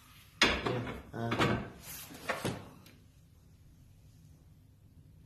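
Clattering and scraping of objects being handled and moved about, in a few bursts starting sharply about half a second in and dying away after two and a half seconds.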